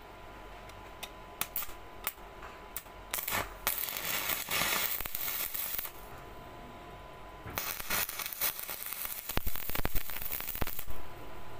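Stick-welding arc on mild steel rebar: a few sharp clicks as the electrode is struck against the rod, then the arc crackling for a few seconds, breaking off, and crackling again for about three seconds near the end.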